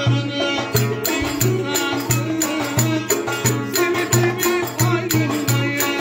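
Live Turkish folk music: a davul bass drum beats a brisk, steady rhythm under a plucked stringed instrument and a wavering melody line.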